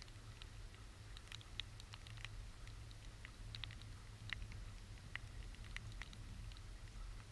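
Scattered water drops ticking irregularly, a few to several a second, on surfaces near the microphone during a thunderstorm, over a steady low rumble.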